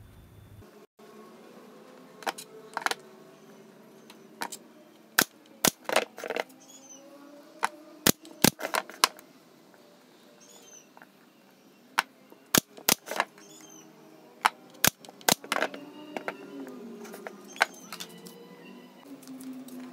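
Pneumatic brad nailer firing brads into a pine frame: a series of sharp shots, many in quick pairs, with short gaps between runs.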